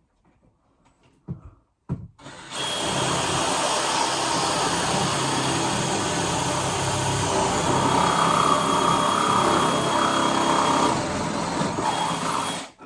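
Electric drill running steadily for about ten seconds while drilling a hole, starting a couple of seconds in and stopping abruptly, after a couple of light knocks.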